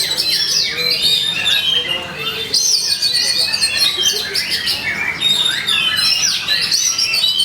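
Oriental magpie-robin (kacer) singing loud, rapid, varied song: a continuous stream of whistles, chirps and quick rising and falling notes.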